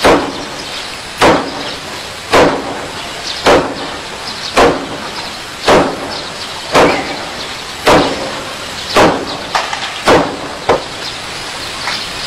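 Clay bricks being struck and broken: about ten sharp cracks in steady succession, roughly one a second, with a few weaker knocks near the end.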